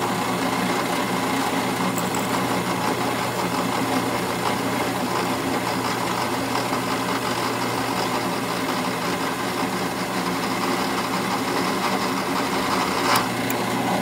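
Drill press motor running steadily while a 5/64-inch twist bit drills a small hole down through a corroded steel muzzleloader lock part. Near the end there is a brief louder scrape as the bit is drawn back up out of the hole.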